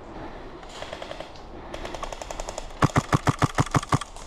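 Airsoft gun firing on full auto: a fainter rapid burst about a second in, then a loud, close burst of about ten shots at roughly eight a second near the end.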